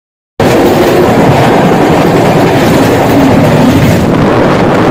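Express train running at speed, heard from outside the coach: a steady, loud rush of wheel and track noise. It starts abruptly about half a second in.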